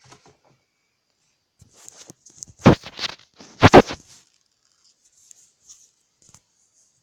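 Handling noise from the recording device being moved and repositioned: rustling with two loud knocks about a second apart near the middle, then a few faint ticks.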